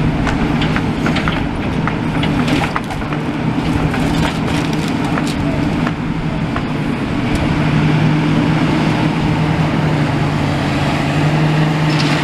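A heavy demolition machine's engine running steadily while it pulls metal poles and girders out of rubble, with sharp metallic clanks and knocks from the debris in the first half. The engine note grows a little louder about halfway through.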